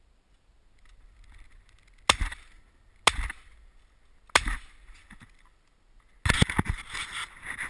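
Three shotgun shots about a second apart, fired from a gun-mounted camera at ducks flying overhead. About six seconds in comes a sudden stretch of loud, dense rustling noise with several knocks.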